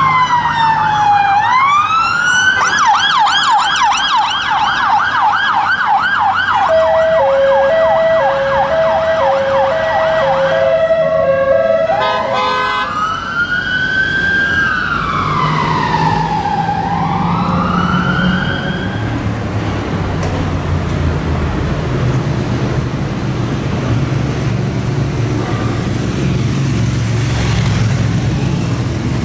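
Electronic sirens of emergency vehicles passing through city traffic. A wail sweeps up and down, then switches to a fast yelp about two seconds in, and a second vehicle's two-tone hi-lo siren sounds with it. After about twelve seconds the yelp stops and a slow wail rises and falls before fading into traffic noise for the last ten seconds.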